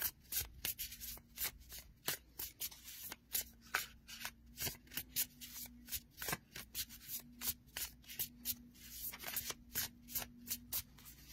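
Large oracle cards being hand-shuffled: an irregular run of light slaps and snaps of stiff cards against each other, several a second.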